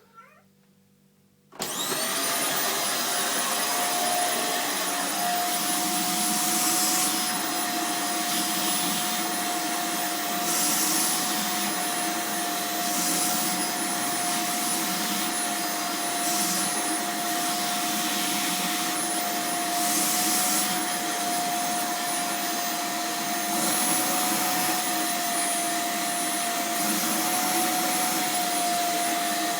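Vacuum cleaner switched on about a second and a half in, then running steadily with a high motor whine, used to groom a cat. The airflow hiss grows brighter for a moment every few seconds as the nozzle moves over the cat.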